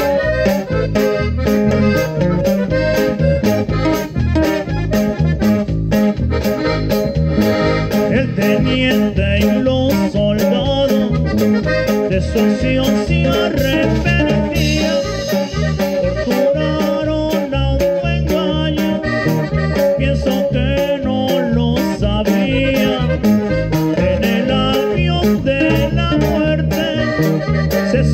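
Norteño band playing live: a red button accordion carries the melody over guitar, electric bass and a drum kit keeping a steady beat, with a man singing into a microphone.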